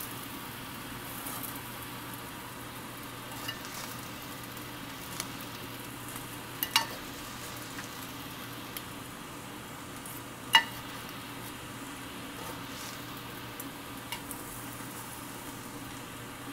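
Fried rice sizzling in a stainless steel pan as it is stirred with metal spoons, over the steady noise and hum of a kitchen exhaust blower. The spoons clink sharply against the pan twice, about seven and eleven seconds in, with a few lighter taps between.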